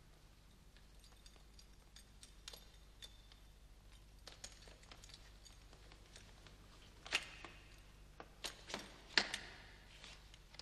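Scattered small clicks and clinks of the electric chair's ankle restraints being buckled and fastened, with a few louder clicks between about seven and nine seconds in.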